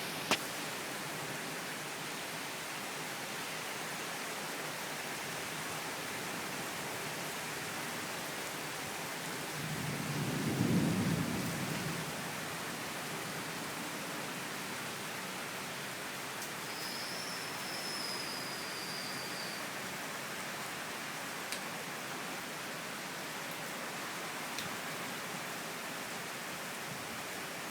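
Steady rain hiss, with a low roll of thunder swelling and fading over about two seconds, a little under halfway through.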